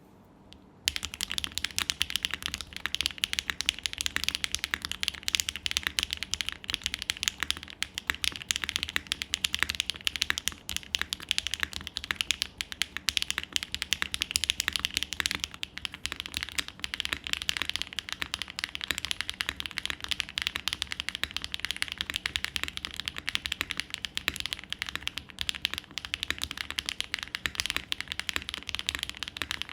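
Fast, continuous typing on a Mode Envoy custom mechanical keyboard with Hyacinth V2U switches: a steady stream of rapid keystrokes that starts about a second in.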